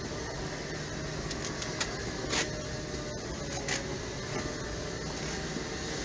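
Ambient sound of an outdoor market street: a steady background hum with several short clicks and knocks, the loudest a little over two seconds in.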